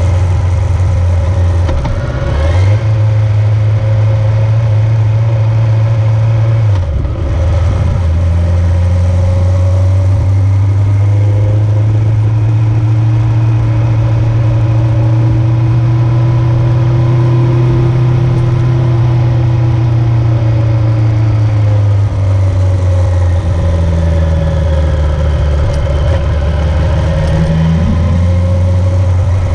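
A motor vehicle's engine running steadily while under way, dropping out briefly twice, about 2 and 7 seconds in.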